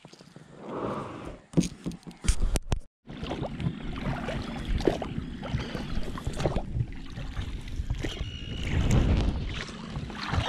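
A few clicks, then, about three seconds in, oars rowing an inflatable boat: water splashing and gurgling off the oar blades and the hull, with irregular knocks from the oars.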